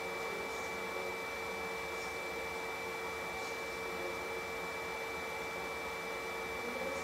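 The stove's electronic ignition unit running: a small blower giving a steady whirring hum with a constant high whine, and a few faint ticks.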